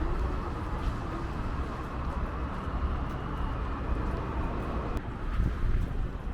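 City street ambience in a snowstorm: distant traffic with a steady low rumble of wind buffeting the microphone.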